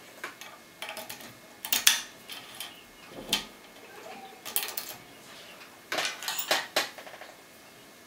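Key sliding in and out of a GTV 7030 APS euro cylinder lock, with a tension wrench then fitted into the keyway: several short bursts of metallic clicks and scrapes as metal rubs on the pin tumblers and the cylinder face, the loudest about two seconds in.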